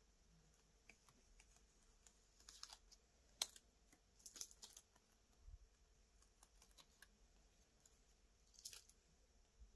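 Fingernails picking at and peeling the clear plastic carrier sheet off freshly pressed glitter heat transfer vinyl on fabric: faint, scattered small clicks and crinkles, with one sharper click about a third of the way in.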